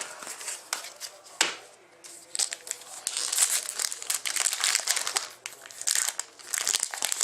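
Plastic packaging crinkling and rustling as trading cards and their wrappers are handled, with a single sharp click about a second and a half in.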